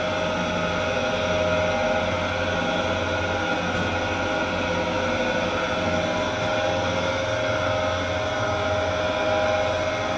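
Large commercial bowl dough mixer running, its hook arm kneading flour and water into bread dough: a steady mechanical drone with a low hum that pulses in a slow rhythm.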